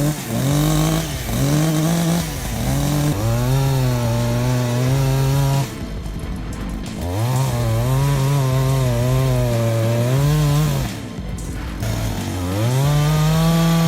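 Chainsaw revving up and held at high speed for a few seconds at a time, dropping back in pitch between runs, about twice, as it works through a cut.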